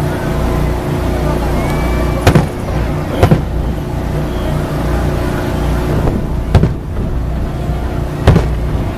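Aerial firework shells bursting: about five sharp bangs, two of them close together in the middle, over steady background noise.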